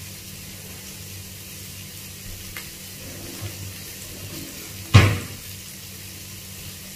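Asparagus and baby carrots sizzling steadily in oil in a wok over a gas burner, with one sharp, loud knock about five seconds in.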